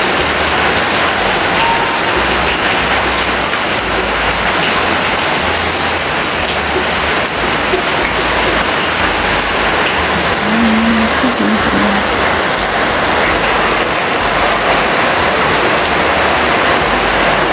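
Steady rain falling, an even dense hiss, heard from under a corrugated roof.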